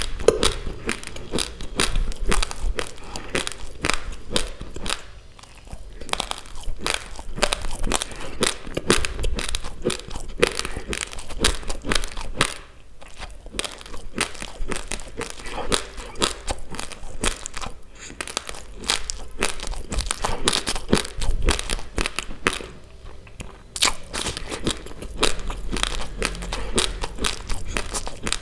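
Close-miked chewing of a mouthful of raw basmati rice: a dense run of hard, crackly crunches as the dry grains are ground between the teeth, broken by a few brief pauses.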